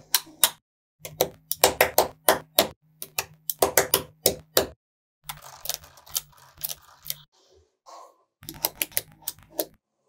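Small magnetic balls clicking sharply as blocks of them snap together and are pressed into place against the table, in quick irregular runs of clicks with short pauses between.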